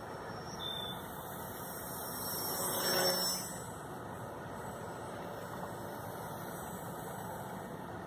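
Small electric motor and propeller of a radio-controlled kite-wing plane whining as it flies past, growing louder to a peak about three seconds in and then fading, over a steady background hiss.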